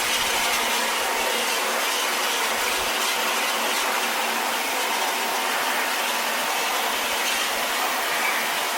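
Pressure washer spraying water onto corrugated barn tin: a steady, unbroken hiss with a faint hum under it.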